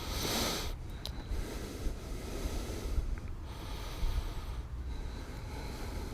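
Breathing close to the microphone: a few hissing exhales over a low steady rumble.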